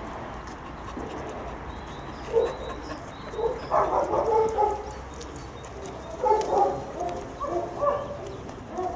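Dogs barking in short clusters of barks, first about two and a half seconds in, then a longer run around four seconds and again around six and eight seconds.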